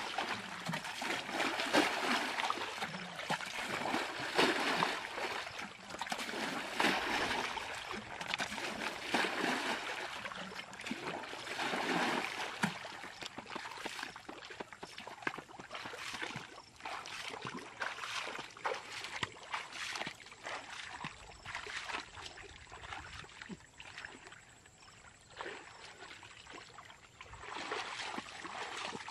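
Muddy water splashing as it is scooped up in a plastic bucket and thrown out of a shallow ditch, a rush of water about every two to three seconds, bailing the ditch dry. Around halfway the splashes stop, giving way to quieter sloshing and sucking of feet wading through mud and shallow water.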